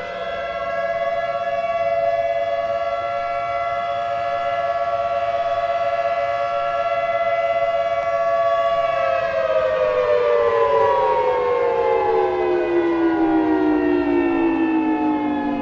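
Outdoor tornado warning siren holding a steady two-note chord for about nine seconds, then winding down, its pitch falling slowly through the rest of the sound.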